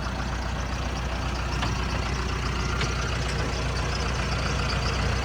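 2010 John Deere 310J loader backhoe's diesel engine idling steadily, growing gradually louder, with a couple of faint clicks partway through.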